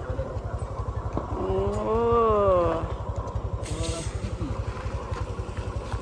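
A motorcycle engine running close by with a steady, even low putter. About two seconds in, a person's voice gives one drawn-out call that rises and then falls.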